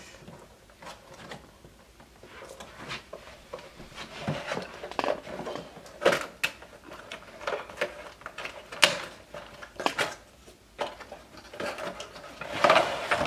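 Tall cardboard box of a microphone boom stand being handled and opened by hand: irregular rustles and scrapes of cardboard with scattered sharper knocks.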